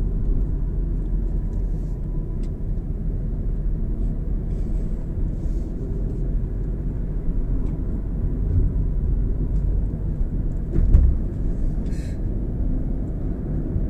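Steady road and engine noise of a moving car heard from inside the cabin, with one brief thump about three-quarters of the way through.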